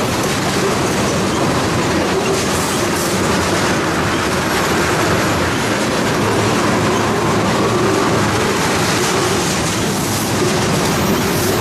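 Freight train of tank cars rolling past at close range: the steady, loud noise of steel wheels on rail, with clickety-clack as the wheels pass over rail joints.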